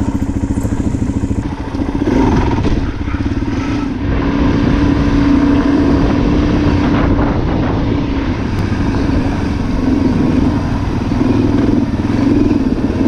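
Suzuki DR-Z400's single-cylinder four-stroke engine running under way on a trail, the revs rising and falling with the throttle.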